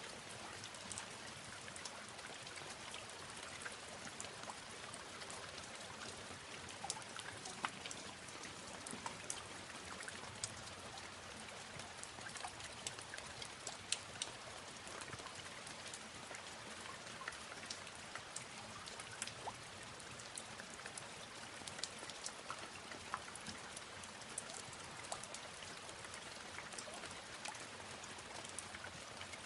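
Steady rain falling, with many sharp individual drop clicks scattered through it.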